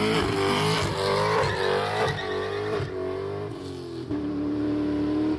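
Car engine revving, its pitch rising and falling several times, then holding a steady note for about the last second.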